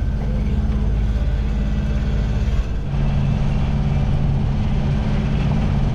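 Sailboat's auxiliary inboard engine running steadily while motor-sailing, a loud, even low hum. About two and a half seconds in the hum briefly dips and settles into a slightly different steady pitch.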